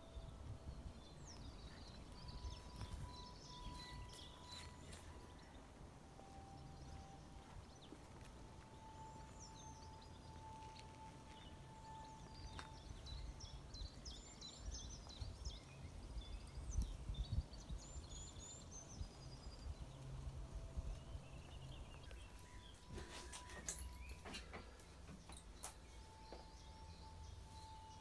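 Birds chirping and singing, faint, over a low rumble, with a cluster of sharp clicks and knocks near the end.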